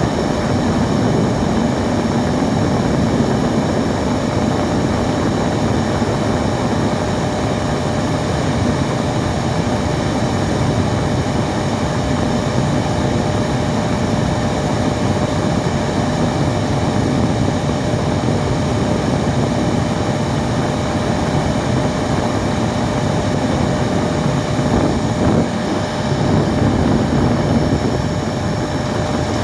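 Vacuum cleaner running steadily: a continuous whooshing drone with a faint steady whine over it, used as white noise.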